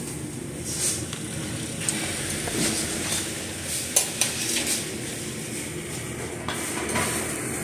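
Metal serving tongs clinking and scraping against stainless-steel buffet trays, several sharp clinks over a steady background noise.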